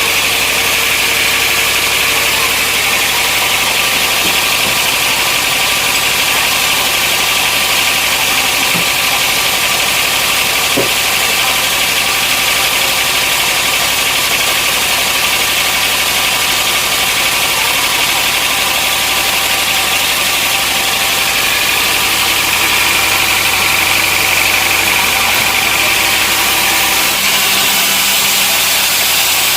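Sawmill machinery running steadily, an engine-like hum with a bright hiss, unchanging throughout.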